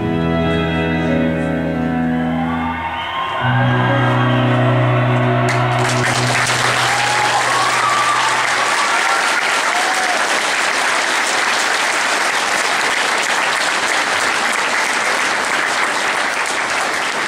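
Music with long held chords closes out, and about five and a half seconds in an audience breaks into applause, which goes on steadily as the music fades away.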